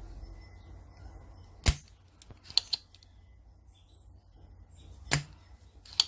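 Spring-loaded desoldering pump (solder sucker) firing twice, a sharp snap about one and a half seconds in and another near the end, with a few lighter clicks between. It is sucking leftover solder out of the pads of a removed analog-stick sensor on a PS4 controller circuit board.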